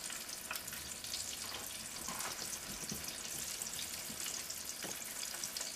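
Battered chicken tenders deep-frying in hot oil, a steady sizzle with small crackles and pops.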